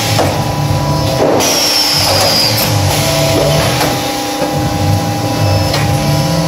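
Background music, with a low line of notes moving in steps.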